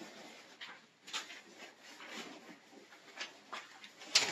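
Nylon bivy shelter fabric rustling and scraping as it is handled and pulled into place, with scattered light knocks and one sharper click near the end.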